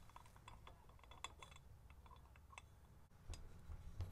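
Faint, scattered small metal clicks and ticks as a rocker shaft is worked into a roller rocker arm in a pit-bike cylinder head while lining it up.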